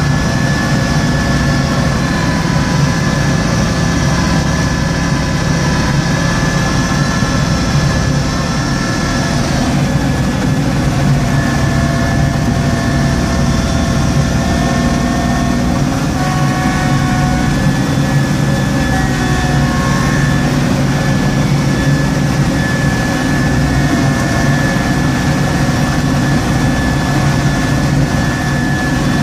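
Small Kubota tractor's diesel engine running steadily under load while driving a front-mounted snowblower, heard from inside the cab, with a steady high whine over the low engine drone.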